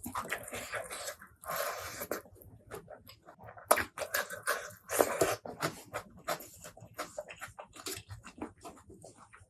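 Close-miked eating: wet chewing and lip smacks, a rapid run of short clicks broken by a few louder, longer mouthfuls.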